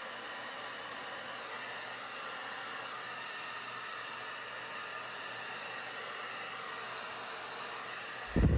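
Hair dryer blowing steadily on high fan, cool air, spreading poured acrylic paint into a bloom across a canvas. Near the end there is a short, loud low thump.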